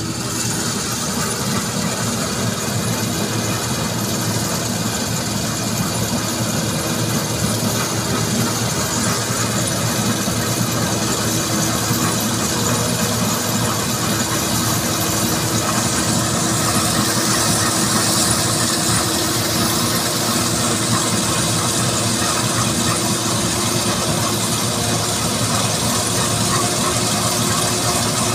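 Combine harvester and tractor running steadily together as the combine harvests and unloads grain on the move into the tractor's trailer. The drone grows slightly louder as the machines come closer.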